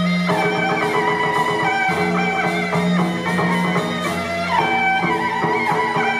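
Traditional Chinese instrumental music: several melodic instruments playing a tune over a steady low drone.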